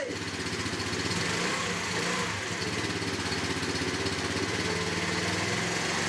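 Small 49cc four-stroke moped scooter engine idling steadily, now running after a non-starter was given fresh fuel, a clean spark plug and a cleaned carburettor.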